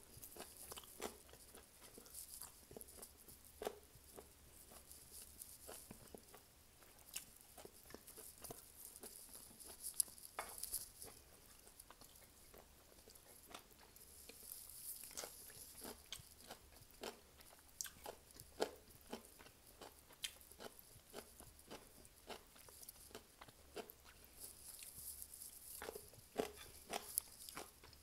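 Faint eating sounds: fried chicken wings pulled apart by hand and chewed, with scattered small crunches and clicks of biting and chewing.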